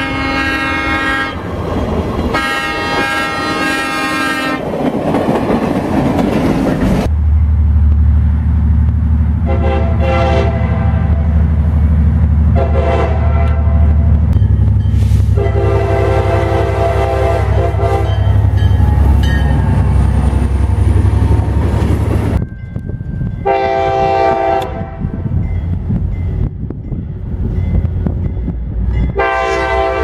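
Diesel freight locomotive air horns sounding a series of blasts across several short clips: two long blasts at the start, then over the steady low rumble of a locomotive engine passing close, a run of long and short blasts, and after a sudden cut two more blasts near the end.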